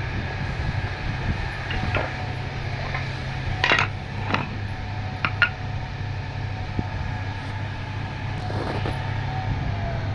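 An electric woodworking machine's motor running steadily with a constant hum, with a few sharp knocks and clicks of wood being handled about four and five seconds in.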